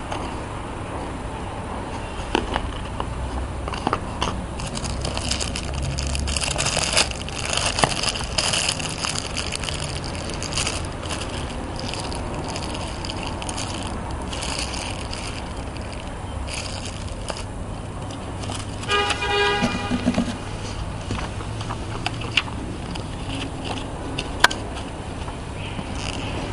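Clear plastic bag crinkling and rustling as it is handled and pulled off a pair of sunglasses, in bursts that are busiest in the first half. A brief pitched tone sounds about three-quarters of the way through, and there is one sharp click near the end.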